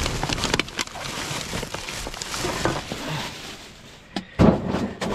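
Rubbish being handled and shifted in a dumpster: rustling with scattered clinks and knocks, and a heavy thud about four seconds in.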